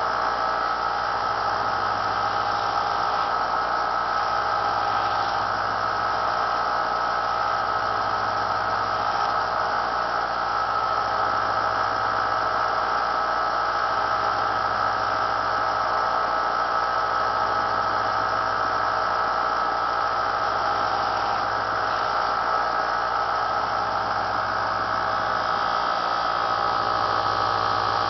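Small benchtop belt sander with a muslin buffing wheel running steadily at a constant pitch, its electric motor humming with a steady whine over it.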